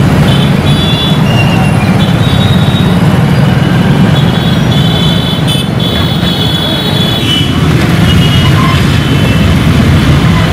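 Street traffic in a jam: a steady mix of idling and creeping car and motorbike engines, with horns sounding again and again in short and longer blasts.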